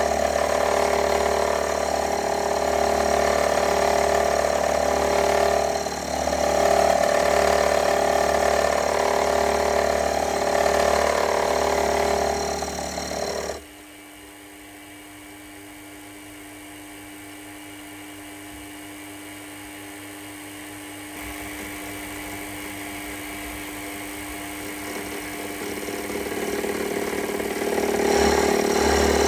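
Geared metalworking machine tool running with a steady mechanical whine. About halfway through the sound drops away abruptly to a low hum, and the full running sound builds back up near the end.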